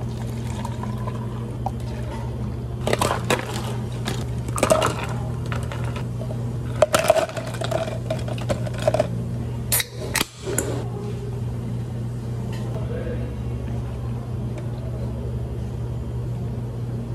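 Drink preparation behind a cafe counter: scattered clinks and taps of cups, ice and utensils, with some pouring, over a steady low hum of cafe equipment.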